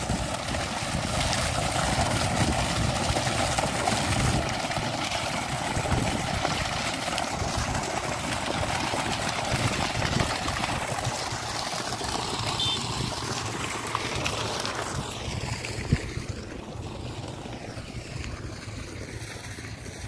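A thick stream of water pouring and splashing onto waterlogged ground in a steady rush. It grows fainter about fifteen seconds in.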